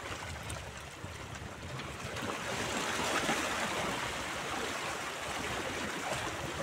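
Small sea waves washing and splashing against shoreline rocks, the wash growing louder a couple of seconds in.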